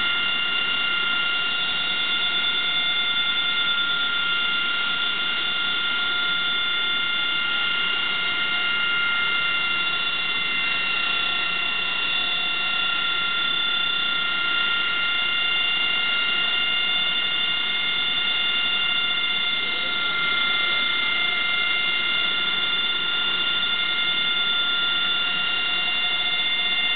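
Harrier's Rolls-Royce Pegasus jet engine running steadily on the ground: a high, even whine of several tones over a steady rush, with no change in pitch.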